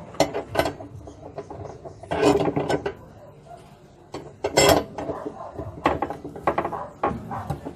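Irregular metal clanks and knocks from tools and parts being handled while a washing machine's gearbox mechanism is taken apart.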